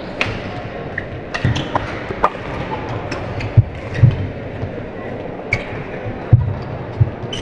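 Badminton doubles rally: sharp strikes of rackets on a shuttlecock at irregular intervals, ringing in a large hall over a background murmur of voices.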